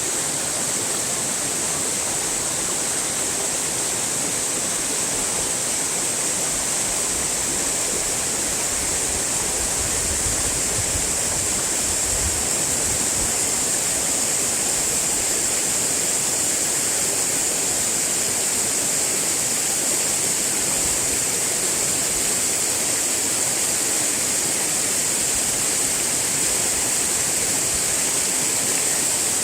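Steady, unchanging white noise: an even rushing hiss, brightest in the high end, played for relaxation.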